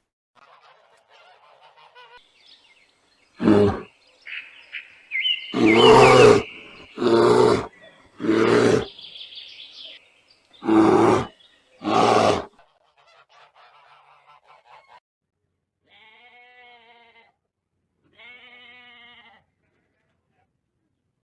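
Domestic waterfowl calling: about six loud, harsh honking calls, each under a second long, then two fainter, more tuneful calls near the end.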